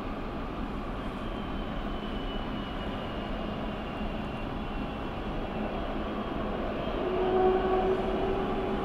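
Business jet's turbofan engines running at taxi power as it turns on a snowy apron: a steady rumble with a thin whine. The engine tone grows louder and stronger about seven seconds in.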